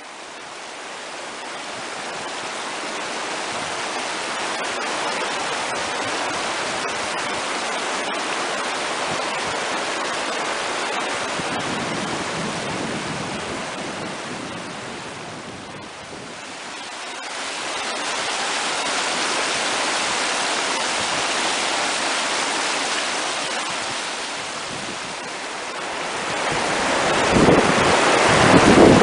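Fast, shallow mountain creek rushing over rocks, a steady white-water hiss that dips for a moment about halfway. Near the end, gusts of wind buffet the microphone.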